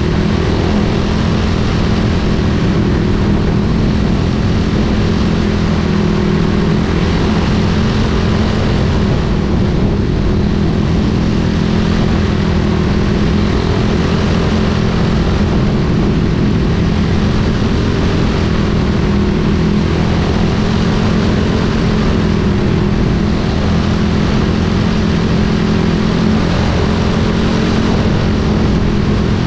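Single-cylinder four-stroke Briggs & Stratton Animal engine of a caged racing kart running at high revs, heard on board, holding a nearly constant pitch under steady throttle with a hiss of wind and tyres over it.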